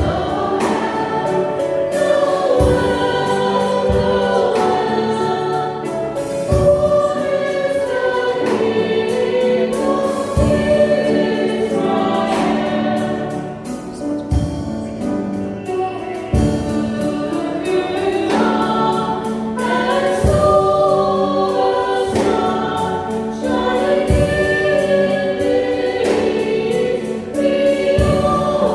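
Several women singing a Christian worship song together, with a low accompaniment that lands about every two seconds.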